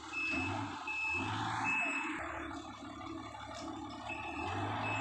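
Komatsu WA120 wheel loader's reversing alarm beeping, a high beep about every 0.8 s, over its running engine. The beeps stop for about two seconds mid-way, then start again.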